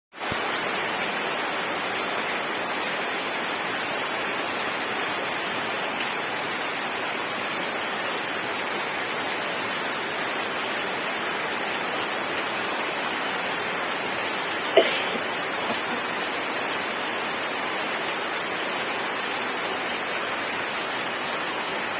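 Rain falling steadily, an even hiss, with one short sharp knock about two-thirds of the way through.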